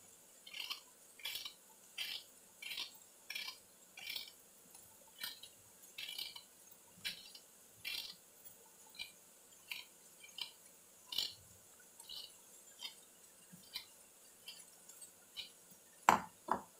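Kitchen knife paring the skin off small unripe green mangoes: short, crisp scraping strokes, about one every two-thirds of a second. Two louder knocks come near the end.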